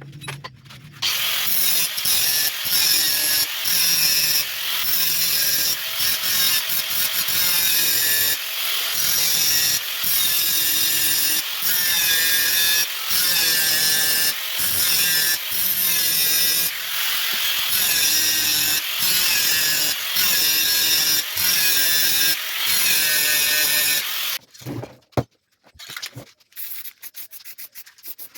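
Wood being rubbed with repeated back-and-forth strokes, a loud rasping noise with a squealing edge, broken by short pauses about every second or so. It stops about 24 seconds in, followed by a single sharp knock and some faint rapid ticking.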